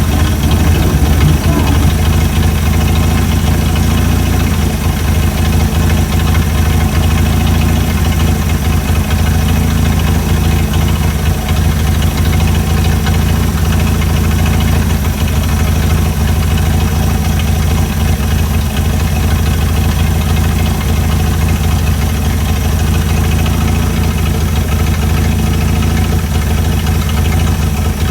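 Chrysler Hemi 265 straight-six in a CM Valiant idling steadily, a smooth even purr with its idle freshly set.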